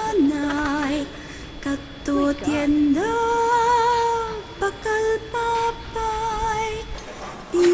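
A single high voice singing a slow, wordless-sounding melody of held notes with vibrato; the longest note, about a second and a half, comes midway, followed by shorter repeated notes.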